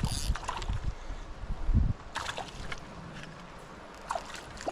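Creek water running, with several heavy low buffets on the microphone in the first two seconds and a few short splashy sounds later.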